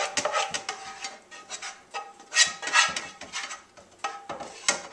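Spatula scraping and knocking against a frying pan as a thick cheesy mixture is scraped out into a slow cooker crock, in irregular strokes.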